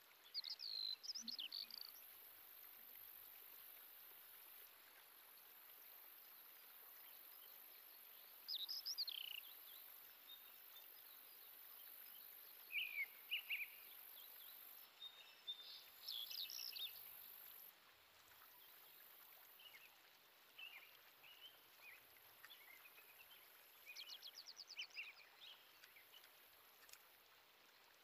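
Faint birds chirping in short, separate calls scattered through, with a quick trill near the end, over a steady high-pitched hiss.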